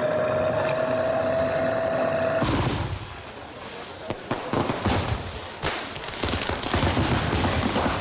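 A steady whine creeping slightly upward in pitch, cut off sharply about two and a half seconds in by an aerial fireworks display: rapid crackling and popping with scattered sharp bangs.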